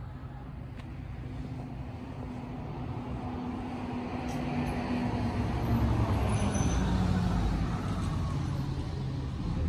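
A motor vehicle driving past on the road, its engine drone and tyre noise swelling to a peak about six seconds in and then fading away.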